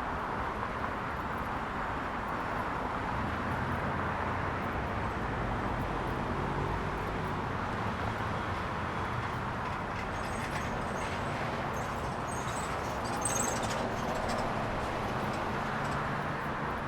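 City street traffic ambience: a steady wash of passing cars, engines and tyre noise. Brief high chirps come through about two-thirds of the way in.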